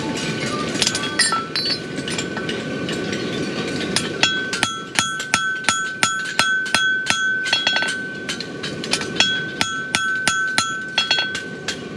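Farrier's hammer forging a hot steel horseshoe on an anvil: a few scattered blows, then from about four seconds in a steady run of blows at about three a second, each leaving the anvil ringing with a high tone.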